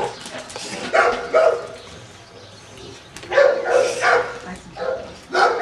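Dogs barking in short bursts: a couple of barks about a second in, a longer run of barks around three and a half to four seconds in, and more near the end.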